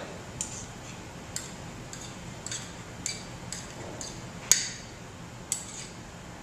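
A metal kitchen utensil clinking against a cooking pot: a string of short, sharp clinks, about one or two a second, the loudest about four and a half seconds in.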